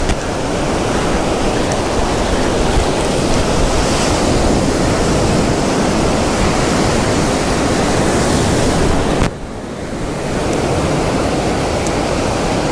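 Ocean surf breaking and washing up the sand in a continuous loud rush, with wind buffeting the microphone. The rush drops off suddenly about nine seconds in and carries on a little lower.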